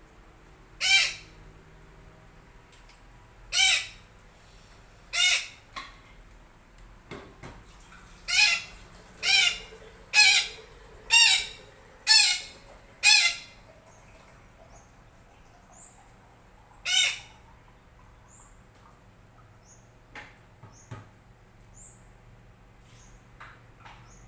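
Betet parakeet giving loud, harsh single squawks: a few spaced calls, then a quick run of about six a second apart, and one more after a pause. Faint high chirps of small birds can be heard in the last part.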